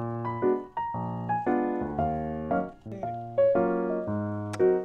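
Background music: a gentle piano-like keyboard tune, notes and chords struck about every half second.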